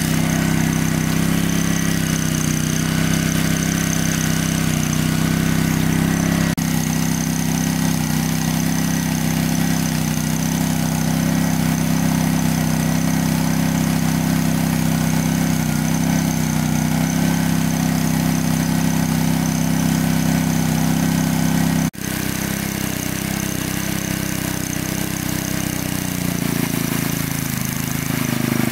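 Engine-driven water pump running steadily at a constant speed, a loud low hum, broken twice by brief sudden dropouts.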